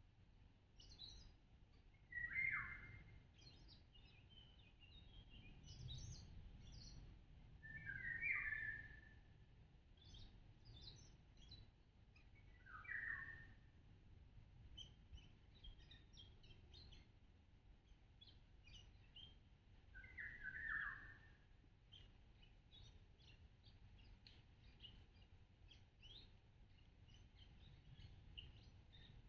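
Birds calling and chirping, faint. Four louder calls come several seconds apart, each about a second long, over many small high chirps.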